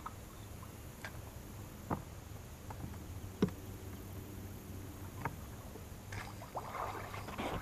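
Steady low hum of a bass boat's bow-mounted electric trolling motor, with a few light knocks on the boat, the loudest about three and a half seconds in.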